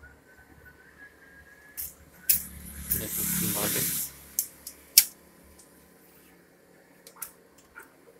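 A Canon imageRUNNER photocopier's pulled-out fuser and paper-transport unit being pushed back in. A scraping rush lasts about a second as it slides home on its rails, with sharp plastic clicks and knocks around it; the loudest click is about five seconds in, as it latches. A few light ticks follow near the end.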